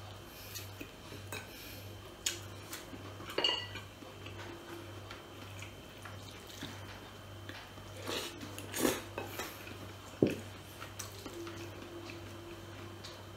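Scattered clinks and taps of cutlery and fingers against a ceramic plate and dishes while eating, with one short ringing clink about three seconds in and a cluster of knocks near the middle, over a faint steady low hum.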